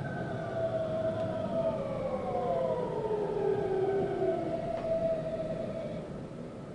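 Electric train's inverter and traction motor whine, several tones gliding down in pitch as the 521-series train slows, with running rumble beneath. The whine fades out about six seconds in.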